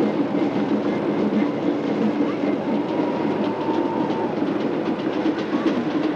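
Farm tractor engine rattling steadily as it tows a loaded trailer along a dirt road.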